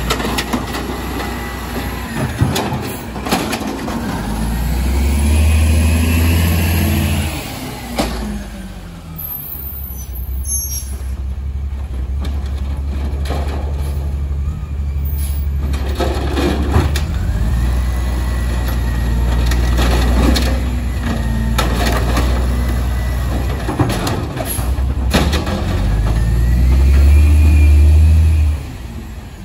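Automated side-loader garbage truck working a cart: the engine revs up and holds twice as the hydraulic arm lifts and dumps, with clanks of the cart and lift gear and a hiss of air brakes, then the truck moves on and the sound drops off near the end.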